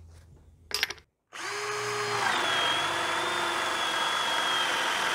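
AEG BSB18G3 18-volt cordless drill on second speed boring a 30 mm Forstner bit into a wooden beam: the motor starts about a second in and runs steadily with a high whine, which drops slightly in pitch a second later as the bit takes load in the wood.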